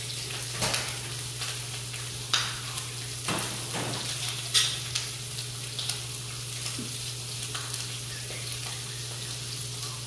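Bone-in chicken breast searing in a sauté pan: a steady sizzle with scattered sharp pops and crackles.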